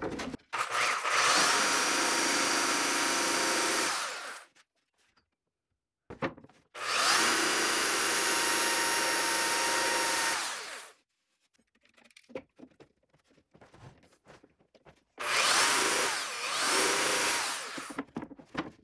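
Ridgid belt sander running against a wooden board three times, each run a few seconds of steady motor whine and belt grinding that winds down after switch-off, the last one briefly broken in the middle. It is sanding a shallow hollow around an outlet cutout. Small handling knocks in the quiet gaps between runs.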